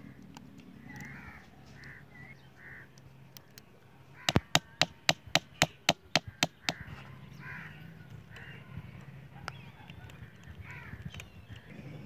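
A quick run of about ten sharp knocks, some four a second, starting about four seconds in, over crows cawing on and off in the background.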